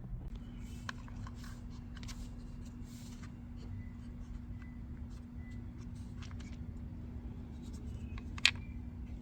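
Small clicks, scrapes and rustles of a plastic HVAC blend door actuator being handled and opened, with one sharp click near the end. A steady low hum runs underneath.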